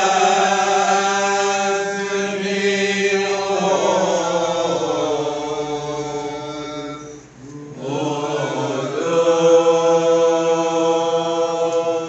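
A group of men chanting marhaban, an unaccompanied Malay devotional chant in praise of the Prophet, in unison with long drawn-out notes. About seven seconds in the chant breaks off briefly, then resumes, sliding in pitch before holding steady again.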